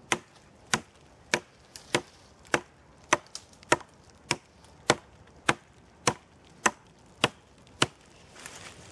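A short-handled blade chopping a thin sapling log, with steady strokes a little under two a second, about fourteen in all, and a couple of lighter taps between them. It is cutting a V-notch from both sides to sever the log.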